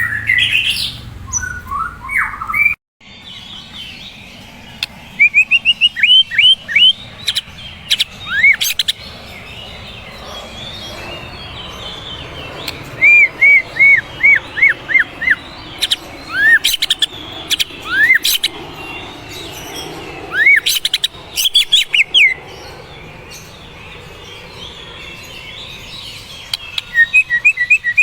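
A murai (Copsychus songbird) singing: runs of quick repeated whistled notes and sharp upswept whistles, mixed with clicks, over a steady background hiss.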